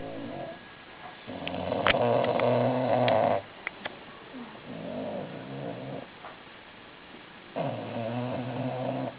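Female bulldog snoring loudly in her sleep: long snores of one to two seconds each, coming about every three seconds, the loudest beginning about a second in.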